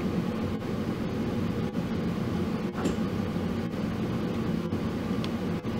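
A steady low machine hum, even and unchanging.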